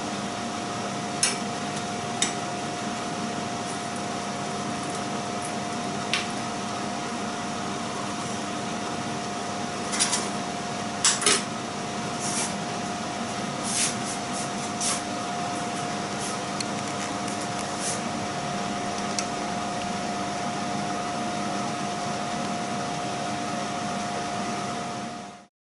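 A steady motor hum with one constant whine, with scattered sharp clicks and clinks of metal tongs and cooked king prawns being set down on a ceramic plate, the loudest cluster about ten to eleven seconds in. The sound cuts off just before the end.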